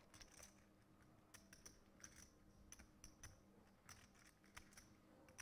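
Faint, irregular clicking of poker chips being handled and riffled at the table, over a low steady hum.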